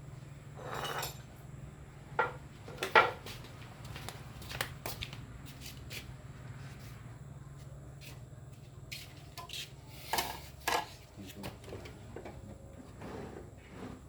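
Scattered metallic clinks and knocks of small metal objects being handled, over a steady low hum. The loudest knock comes about three seconds in, and a pair comes about ten seconds in.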